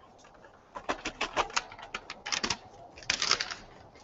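A paper envelope being handled and opened, with folded paper entry slips tipped into a hat: a quick, irregular run of paper rustles and crackles, thickest near the end.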